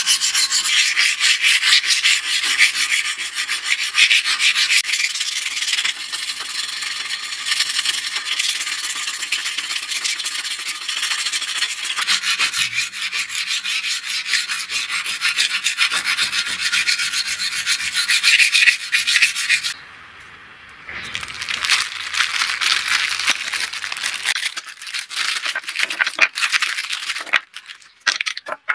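Hand file rasping along the edge of a small metal blade clamped in a vise, in fast repeated strokes. The filing stops for about a second roughly two-thirds through, then resumes. A few light clicks come near the end.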